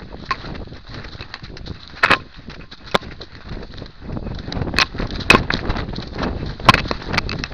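Handling noise from a camera strapped to a running dog's chest: rustling and brushing through undergrowth, with sharp knocks as the camera is jolted. It grows louder and busier about four seconds in as her strides pick up.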